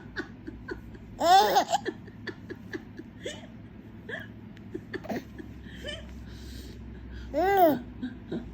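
Four-month-old baby laughing in many short, hiccup-like bursts, with two louder, longer voice calls about a second in and about seven and a half seconds in.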